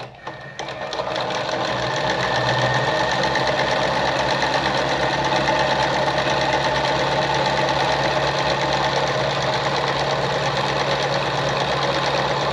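Singer 306M sewing machine running steadily at speed, stitching a zigzag, with a fast even clatter over a constant motor hum. It starts up about a second in.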